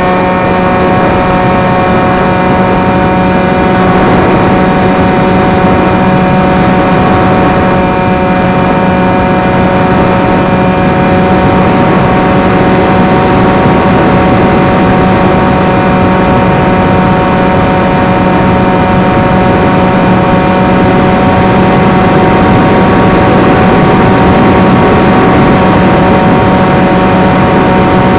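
Electric motor and propeller of a foam FPV flying wing, recorded by the onboard camera in flight, running at a steady pitch and mixed with loud wind rush over the microphone.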